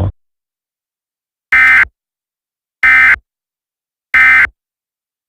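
Three short, buzzy bursts of Emergency Alert System digital data tones, evenly spaced a little over a second apart: the SAME end-of-message signal that closes an EAS alert broadcast.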